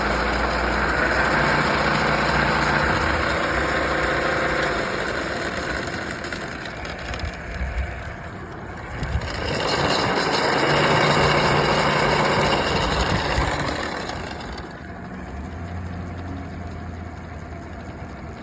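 A motor vehicle's engine running, its sound swelling louder twice, the second swell about ten seconds in, before cutting off suddenly at the end.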